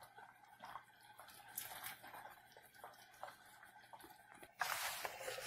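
Faint bubbling of a pot of soup simmering on the stove: soft scattered pops and wet clicks. Near the end a sudden louder rustle starts.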